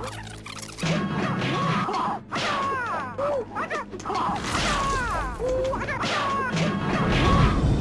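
Movie-trailer soundtrack: music under sharp hits and crashes, with many short high gliding tones.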